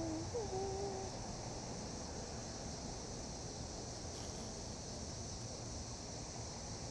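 Steady high-pitched chorus of insects trilling, over an even low background hiss, with a couple of short whistled notes in the first second.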